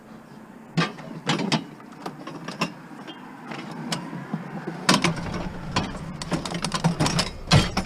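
Scrap items being handled and shifted, a series of knocks and clatters that come thicker in the second half, with a low hum coming in about halfway through.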